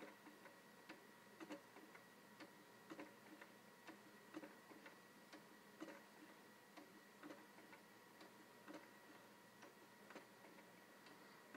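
Baby swing's mechanism ticking faintly and evenly, about two ticks a second, over a faint steady hum.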